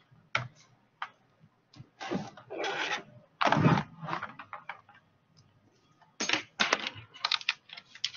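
Computer keyboard keys clicking: a few scattered clicks, then from about six seconds in a quick run of typing. A few louder noisy bursts come between two and four seconds in.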